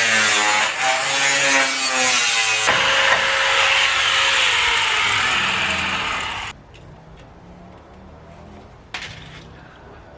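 Angle grinder cutting sheet tin: a loud, steady grinding whose pitch falls under load, cutting off abruptly about six and a half seconds in. A short scrape follows near the end.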